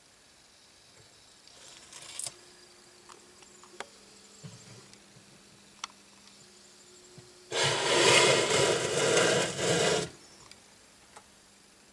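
Faint steady hum with a few small clicks, then a loud rubbing, scraping noise about seven and a half seconds in that lasts about two and a half seconds and stops suddenly.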